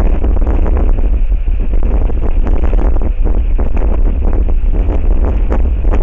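Strong wind buffeting the outdoor webcam's microphone: a loud, steady low rumble with gusty crackle.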